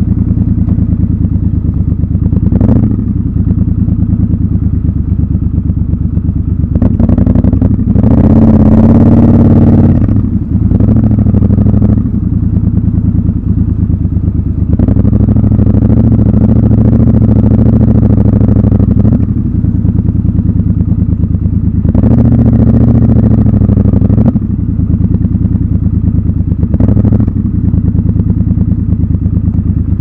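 Triumph Scrambler 1200 XC's parallel-twin engine running at low revs under light throttle as the motorcycle rolls slowly. The engine swells louder several times, most strongly about a third of the way in, and there are a few short knocks.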